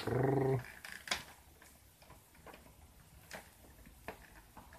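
Sparse, sharp plastic clicks, roughly one a second, as the drum of a plastic toy cement mixer truck is turned by hand to "pour" its load down the chute.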